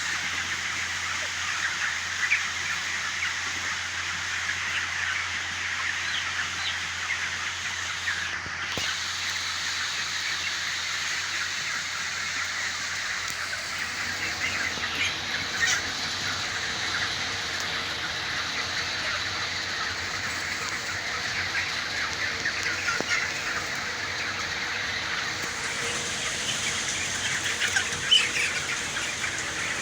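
A large flock of young broiler chickens, about four weeks old, many cheeping and calling at once in a dense, steady chorus, with a few louder calls standing out.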